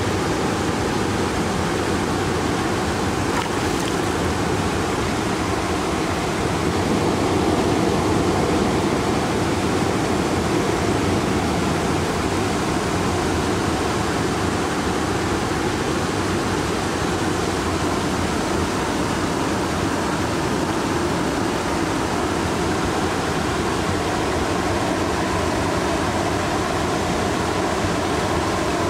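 Steady rush of river water spilling over a low weir, an even noise without breaks.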